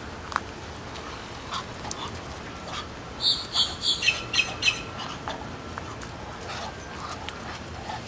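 A boat-tailed grackle gives a quick series of about six harsh, high calls a little past the middle, over soft hissing from Muscovy drakes courting.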